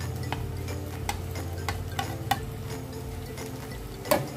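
A slotted spatula clicking and scraping against a plate and frying pan as carrots are pushed into the pan and stirred with onion and garlic, with a faint sizzle of frying. A steady low hum runs underneath, and the sharpest click comes about four seconds in.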